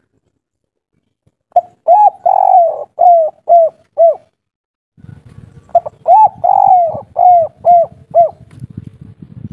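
Spotted dove cooing its 'kuk 3' type song: two phrases of about six arched coos each, the second starting about four seconds after the first.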